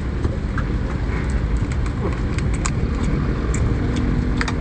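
Shell of a boiled crayfish cracking and crackling as it is pulled apart by hand, in scattered small clicks over a steady low rumble.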